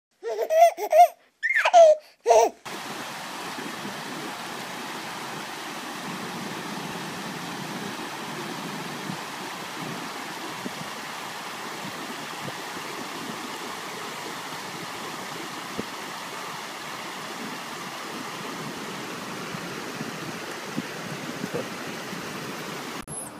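About two seconds of loud, pitched vocal sounds, then the steady rush of shallow stream water flowing over stones, with a few faint clicks.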